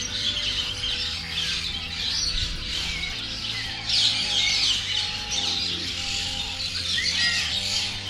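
Small songbirds chirping and singing, many short overlapping calls and quick up-and-down notes.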